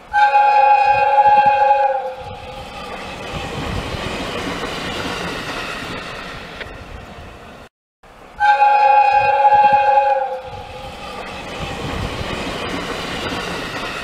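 Train horn sounding a steady chord for about two seconds, followed by the running noise of a train that swells and fades. The same horn blast and train noise come again after a brief break about eight seconds in.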